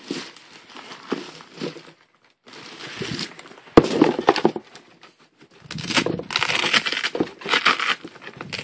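Packaging rustling and crinkling in bursts as new motorcycle boots are handled, with a single sharp knock about four seconds in and denser rustling near the end.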